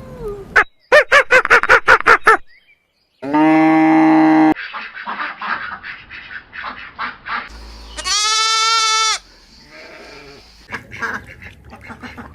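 A series of animal calls in separate edited snippets: a fast run of short pulsed calls, then long pitched calls of a second or more, twice, between further short calls.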